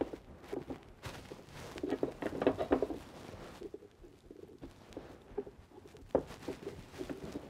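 Light wooden clicks and clatter of beehive frame bars being handled and set into a frame assembly jig, with a busier run of rattling about two seconds in and a sharper knock just after six seconds.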